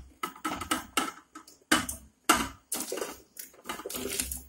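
Chunks of raw tapioca (cassava) pushed by hand from an enamel bowl into a steel pot of water, in a quick, irregular run of knocks and splashes, about four a second.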